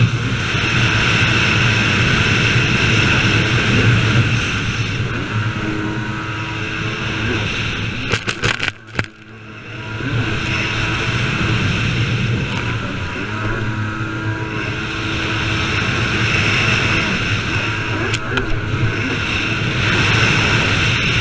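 Stand-up jet ski engine running at speed, with water spray and wind on the microphone. About eight seconds in there are a few sharp crackles and the sound briefly drops away, then the engine picks back up.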